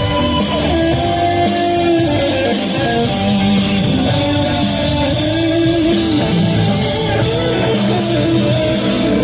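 Live rock band playing an instrumental passage, with guitar prominent over the band.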